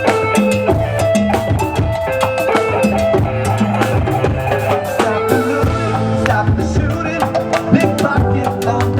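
Live band playing a Latin-rock groove: drum kit and hand percussion keeping a steady beat under bass and sustained guitar or keyboard notes.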